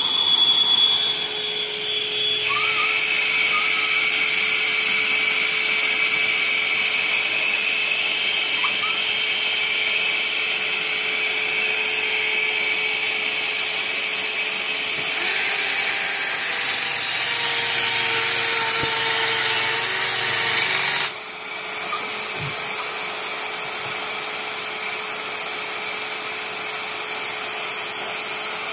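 A Bosch cordless dust extractor runs steadily throughout. About two seconds in, a Bosch GKS 12V-LI cordless circular saw starts and cuts through 12 mm OSB board, adding a high whine, and it stops abruptly about three quarters of the way through, leaving the extractor running alone.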